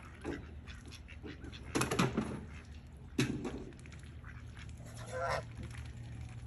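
Domestic ducks quacking, a few separate calls about two, three and five seconds in.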